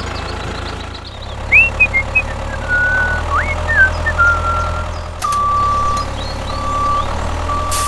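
Steady low engine drone of a small tractor running, with a few short whistling chirps in the first half. From about five seconds in, a steady beeping tone sounds in long pulses, like a reversing alarm.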